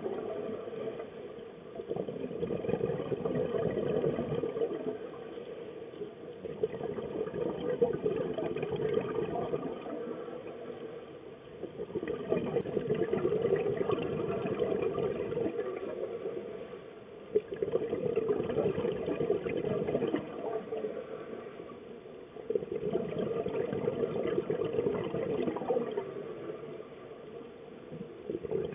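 Scuba regulator breathing heard underwater: bursts of exhaled bubbles lasting a few seconds, with quieter pauses for each inhalation, in a regular cycle of about five seconds.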